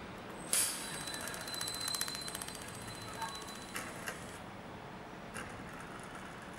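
Pulsed lamp-pumped laser welder welding a stainless steel spout seam: a rapid, even train of sharp snapping pulses over a steady high whine. It starts suddenly about half a second in and stops after about four seconds, with a few single snaps after.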